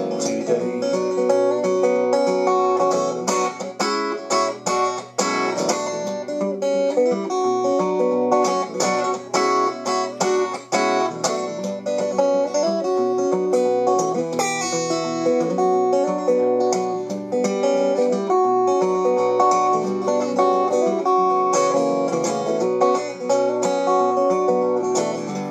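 Solo acoustic guitar playing an instrumental break, a steady run of plucked notes and chords with no voice.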